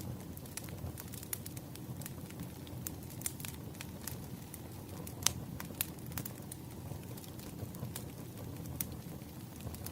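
Wood fire crackling: a steady low rumble of burning logs with scattered sharp pops, a louder pop about five seconds in.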